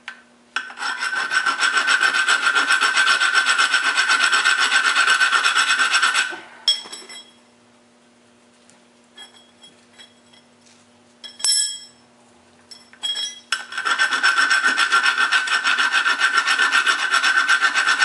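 A hand file rasps over the steel motor shaft of a Chamberlain-made garage door opener, filing down the burrs that the collar set screws raised so the new motor bearing is not gouged. It comes in two long runs of quick back-and-forth strokes, about five a second, with a pause in the middle broken by a few light clicks.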